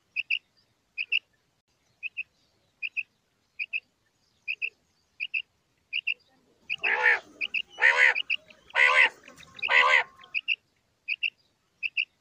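Common quail calling: short, high paired notes repeat about every 0.8 seconds. About seven to ten seconds in, four louder, longer and harsher calls come roughly a second apart.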